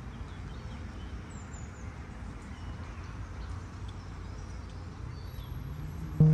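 Outdoor ambience: a steady low rumble with a few faint bird chirps now and then. Music cuts in at the very end.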